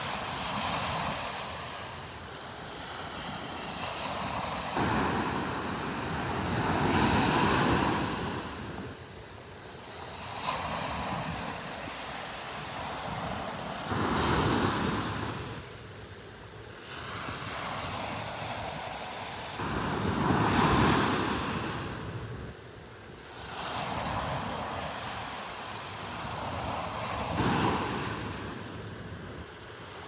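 Small waves breaking and washing up the sand at the shoreline, the rush of surf swelling and fading every several seconds, loudest about a quarter of the way in and again about two-thirds in.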